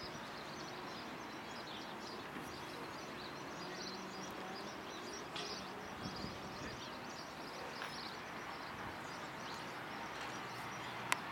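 Outdoor ambience: a steady wash of background noise with many small birds chirping on and off throughout, and one sharp click near the end.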